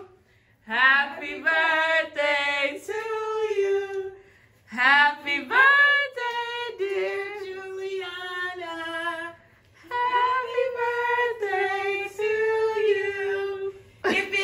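A woman singing with no instruments heard, in three long held phrases with short breaths between them.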